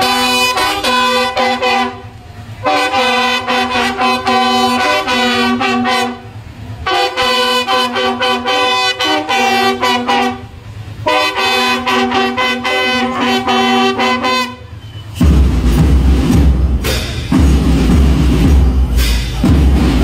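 Marching band bugles and a baritone horn playing a fanfare-like tune in four loud phrases with short breaks between them. About 15 seconds in the brass stops and the band's drums carry on alone with a loud beat.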